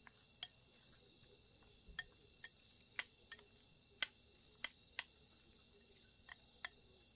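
Faint steady high-pitched insect chirring, with about ten sharp light clicks at irregular intervals.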